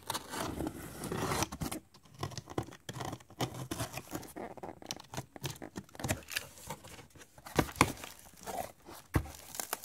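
Utility knife slitting packing tape along a cardboard box, a scraping, tearing sound for about the first two seconds, followed by the cardboard flaps being handled and pulled open, with irregular scrapes, rustles and light knocks of cardboard.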